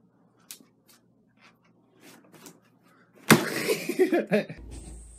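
A plastic laundry basket tipping over under a climbing puppy: faint small taps and scratches, then a sharp clatter about three seconds in, followed by a second or so of jumbled knocking and rustling as basket, blanket and puppy land on the floor.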